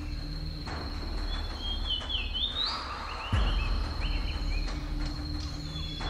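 Forest ambience: a steady high-pitched insect drone, with a few short bird chirps that glide up and down in the middle. A low rumble steps up suddenly a little after three seconds.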